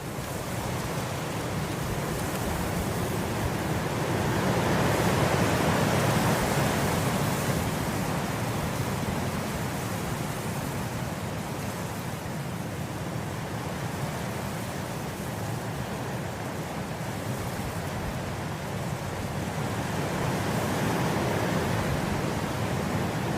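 Wind blowing through grass in soft, steady gusts, swelling about five seconds in and again near the end.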